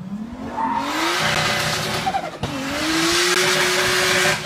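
Car engine revving hard as it accelerates, then its tyres squealing as it breaks traction into a smoky skid. The engine note dips briefly about halfway through and climbs again.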